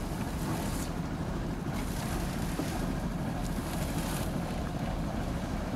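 Wind buffeting the microphone over water sloshing around a wooden fishing boat. A few brief splashes come as a dripping mesh bag of catch is hauled out of the sea onto the deck.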